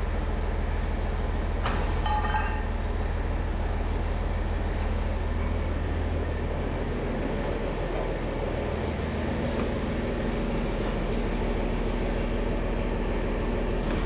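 Tractor engine idling with a steady low rumble, with a few light metallic clinks about two seconds in.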